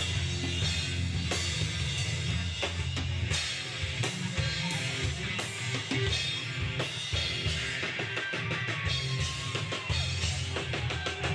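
Live rock band playing a song: a drum kit beats steadily over bass and electric guitar.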